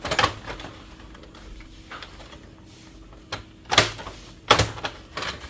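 Plastic clicks and knocks of a Brother DCP-T310 printer's housing panel being fitted and pressed into place. A few clicks come at the start, then two loud knocks about four seconds in, half a second apart.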